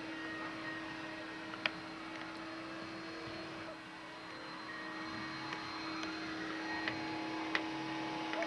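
Steady low hum over an even hiss, with a few faint clicks, the loudest about one and a half seconds in and several near the end.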